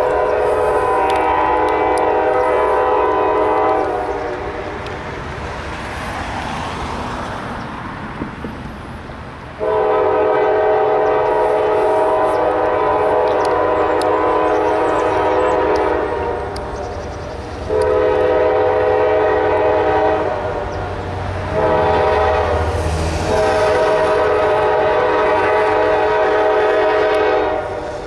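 CSX diesel locomotive's multi-chime air horn sounding the grade-crossing signal: two long blasts, one short and one long. This pattern is the warning for the approach to a public road crossing.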